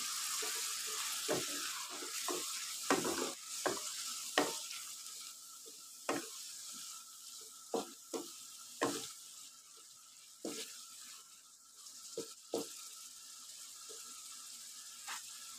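Wooden spatula stirring boiled meat pieces through a wet tomato and spice masala in a wok, with irregular knocks and scrapes against the pan over a soft sizzle.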